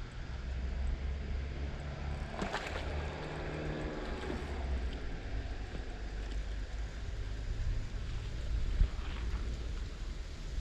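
A hooked black bass splashes at the water's edge as it is landed by hand, over a steady low wind rumble on the microphone. A short rattling sound comes about two seconds in.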